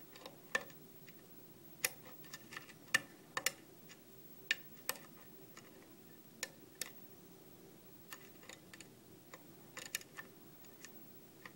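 Lock pick clicking and tapping against the pins inside a brass five-pin tumbler lock cylinder under a tension wrench: small, sharp metallic clicks at irregular intervals, in clusters, as the pins are lifted and set one by one.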